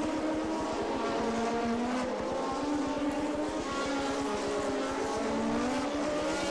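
Several 1987 Formula One cars running through a chicane one after another, their engine notes overlapping and rising and falling in pitch as they brake, shift and accelerate away.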